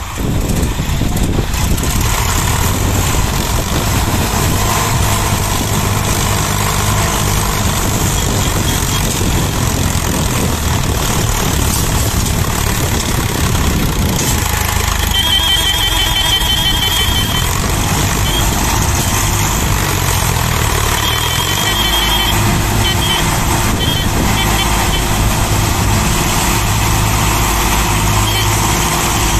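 Diesel engines of a John Deere tractor and blue Sonalika and Swaraj tractors running hard together, hauling a heavily loaded sugarcane trailer; loud and steady, with the engine pitch shifting about two-thirds of the way through. A high warbling tone sounds in two stretches past the middle.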